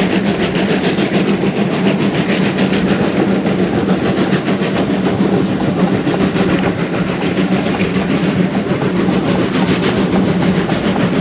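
Steam locomotive working hard at speed, its exhaust beats coming in a rapid, even rhythm over the steady rumble of the carriage on the rails, heard from an open carriage window.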